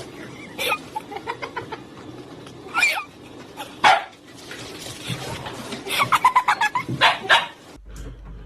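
A dog barking several times, with a quick run of barks about six seconds in.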